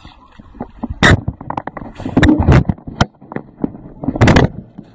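Loud irregular splashes and knocks of water hitting a 360 camera held close to the water's surface, in several sudden bursts, the longest just past four seconds in.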